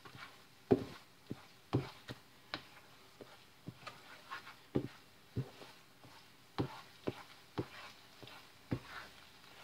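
A spatula knocking and scraping against a nonstick frying pan while stirring scrambled eggs: irregular knocks about every half second, the loudest about a second in.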